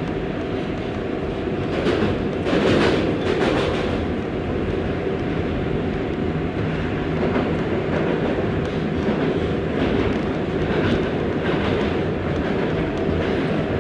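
R188 subway train running at speed through a tunnel: a steady rumble of steel wheels on the rails, with a few sharper clacks about two to three seconds in and again later.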